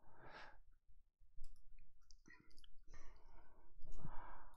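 Trading cards being handled close to the microphone: scattered light clicks and short rustles as a card is turned and moved between the fingers.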